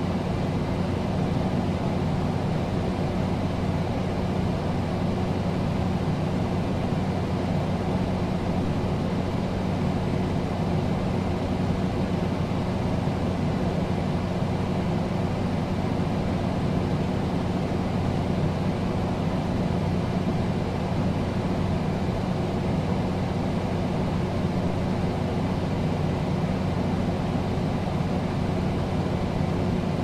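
Air conditioner running steadily: an even rush of airflow over a low, constant hum.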